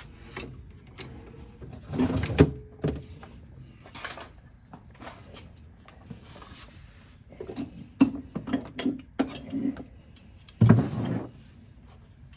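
Scattered clicks, knocks and light clatter of tools and parts being handled, with two louder thumps, one about two seconds in and one near the end.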